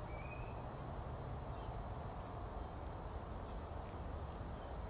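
Faint, steady outdoor background noise with a low rumble, and a single short bird chirp just after the start.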